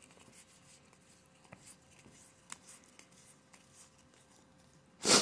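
Faint rustle and soft ticks of a stack of paper trading cards being thumbed through one by one in the hands. Near the end, a short, loud, hissy burst.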